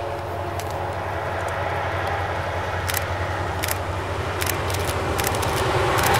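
Steam locomotive approaching under steam, a steady low rumble that grows louder toward the end. A few sharp clicks sound now and then over it.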